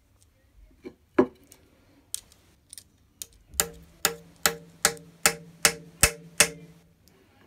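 A small hammer tapping the metal nameplate onto the cast motor housing of an early-1960s Black & Decker 6-inch bench grinder: a single knock about a second in, then eight evenly paced taps, about two and a half a second, each leaving the housing ringing briefly.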